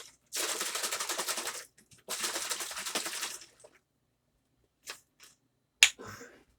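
Plastic ketchup bottle with vinegar inside shaken hard to rinse it, in two bursts of rapid sloshing and rattling. A few light clicks follow, then one sharp click near the end.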